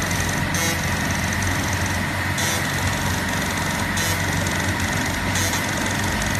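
Automatic paint-dispensing machine running as it fills the markings on watch bezel rings: a steady machine hum with four short bursts of hiss, about one every second and a half.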